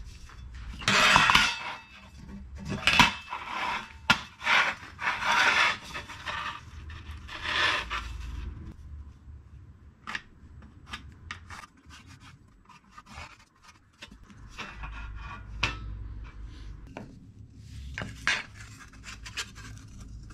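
Wood being rubbed down by hand with an abrasive: a run of rasping strokes, each under a second to about a second long, over the first eight seconds. Then come quieter scrapes with small taps and clicks.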